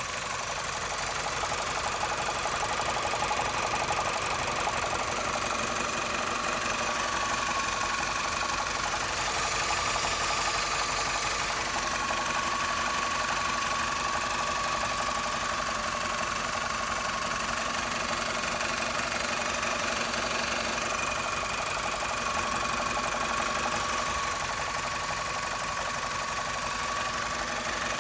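BMW E46 318i four-cylinder petrol engine running steadily with a continuous rattle and a thin, steady whine, slightly louder in the first few seconds. The rattle is the unexplained noise the owner says comes on once the engine is warm.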